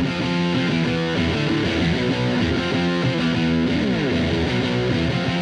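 Background music: distorted electric guitar rock with sliding notes.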